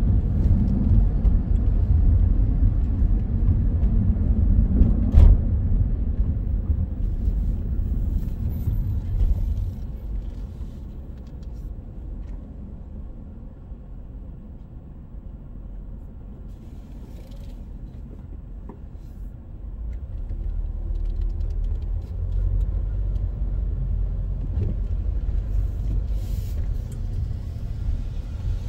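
Street traffic going by as a low, steady rumble. It is loudest in the first ten seconds, drops off in the middle, and builds again after about twenty seconds. A single short click comes about five seconds in.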